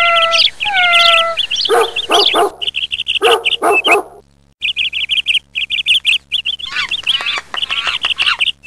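Birds chirping in rapid high trills, with a dog barking in short runs of two or three barks a few times.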